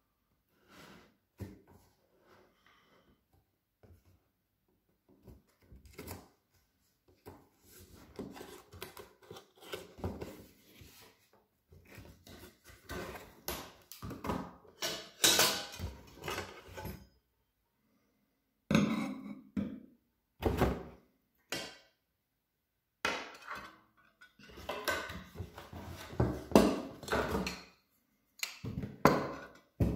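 Irregular knocks, clicks and clatter of an immersion blender's plastic and stainless steel parts and their packaging being handled during unpacking, in stop-start bursts with short pauses. The blender is not running.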